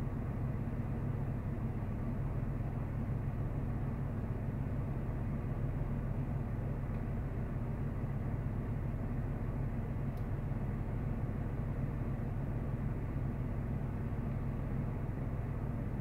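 A vehicle engine idling: a steady low hum that does not change.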